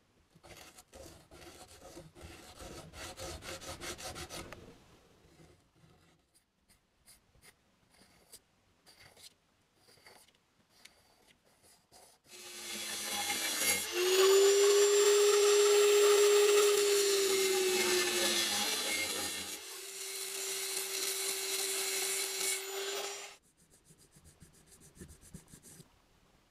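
Hand abrasion of a steel axe head. Rubbing strokes of an abrasive stick come first, then scattered light scrapes. About halfway through, a small electric power tool starts up with a steady whine and runs for about ten seconds, dipping briefly, then stops. Near the end come quick, short needle-file strokes on the steel.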